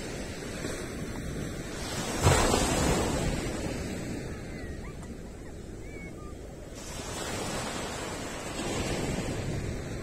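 Small ocean waves breaking and washing up a sandy beach. The loudest wave crashes about two seconds in and fades away, and another swells up later on.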